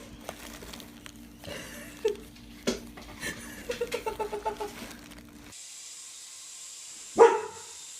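A dog barks once, sharply, near the end over a steady hiss. Before that come a few short knocks and quick voice-like calls.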